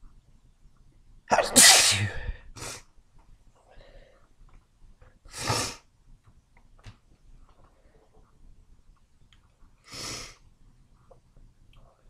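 A person sneezing wetly: one loud sneeze about a second and a half in, then two shorter, quieter bursts around the middle and near the end.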